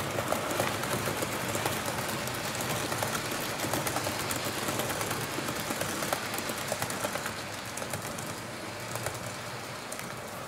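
HO-scale model train, a Roco NS 1100 electric locomotive with its coaches, rolling along the layout track with a steady rush and many irregular clicks of wheels over rail joints and points, slowly fading as it runs away.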